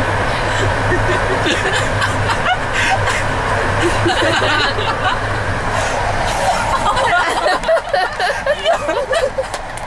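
Several people laughing and giggling, the laughter growing livelier over the second half, over the steady hum and running noise of a passenger train.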